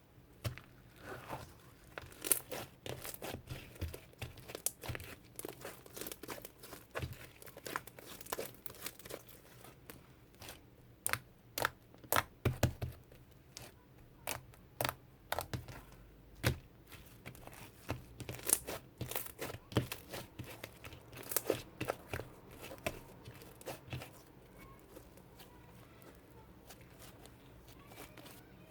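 Irregular crinkling and tearing, like paper or plastic being handled and torn, with scattered sharper snaps.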